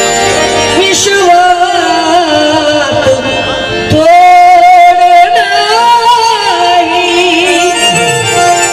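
Live performance of a Marathi devotional song: a singing voice carries a slow melody with held, wavering notes and ornamented glides over harmonium accompaniment.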